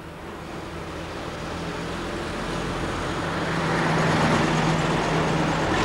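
A truck's engine approaching, growing steadily louder for about four seconds, then running loud and steady as it comes alongside.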